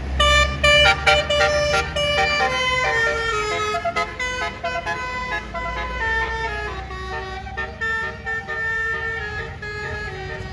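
Bus basuri (telolet) melody horn playing a tune: a quick run of short horn notes stepping up and down in pitch, then longer held notes, over a low engine rumble.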